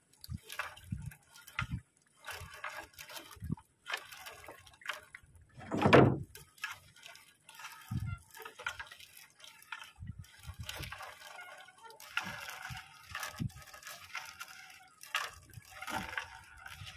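Sea water sloshing and dripping in irregular splashes, with one louder splash about six seconds in.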